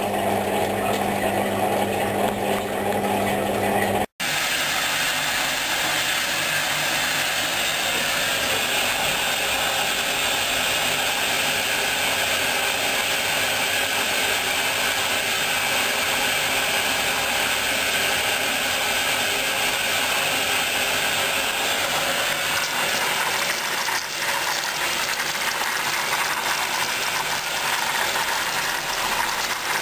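Hoover washing machine running its wool programme, a steady mechanical running sound with no pauses. It breaks off for an instant about four seconds in, then carries on evenly.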